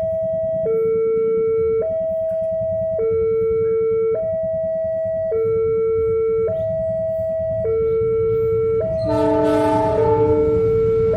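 Railway level-crossing warning alarm sounding two electronic tones, high then low, each held about a second and repeating steadily. About nine seconds in, a diesel locomotive's horn sounds over it and the rumble of the approaching train rises.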